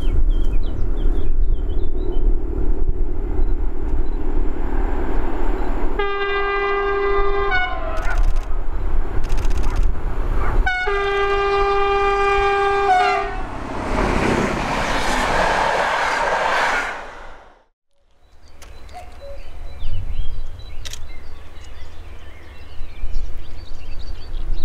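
Newag Dragon E6ACTd locomotive approaching on its diesel engine with a steady low rumble, then sounding its two-tone horn in two long blasts of about two seconds each, then passing with a loud rush of wheel and rail noise. After a sudden cut, a faint rumble and small bird chirps.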